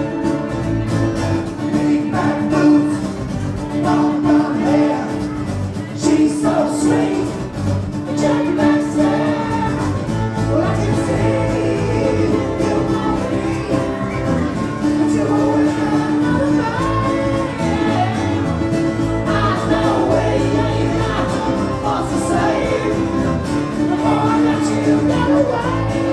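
A small live band of fiddle, electric bass and acoustic guitar playing an upbeat rock song together.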